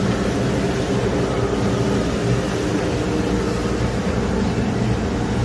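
Steady drone of woodworking factory machinery running, an even noise with a low hum that does not change.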